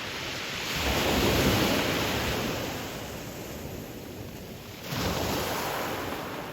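Ocean waves breaking on a pebble beach: one wave swells and crashes about a second in, then fades, and a second breaks more suddenly near the end.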